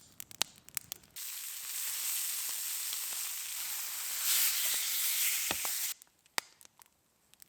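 Food sizzling in a frying pan: a steady hiss that starts sharply about a second in and cuts off near six seconds, with a few sharp clicks before and after it.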